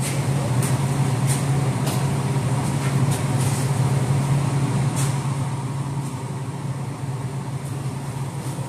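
Electric arc welder tack-welding steel: a steady arc buzz with dense crackling and a few sharp clicks in the first few seconds.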